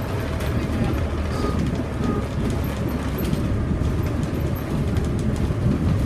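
Škoda 14Tr trolleybus running along a street, heard from inside at the front: a steady low rumble of tyres and drive.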